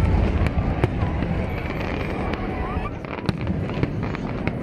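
Aerial fireworks display: a continuous low rumble of shell bursts with irregular sharp cracks.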